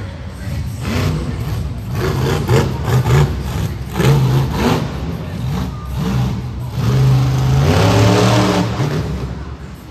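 Monster truck engine revving hard in repeated surges as the truck drives and turns, with the longest, loudest rev about seven to eight and a half seconds in.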